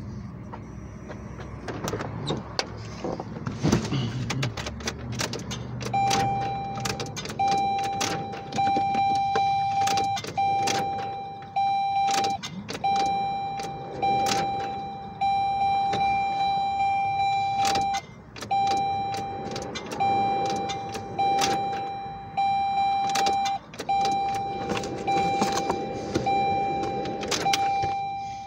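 A car's dashboard warning chime dings over and over, in a steady repeating tone that starts about six seconds in. Scattered sharp clicks run through it as the ignition key is worked. The car has plenty of electrical power, but the engine does not crank, which the driver puts down to the chip key not being sensed.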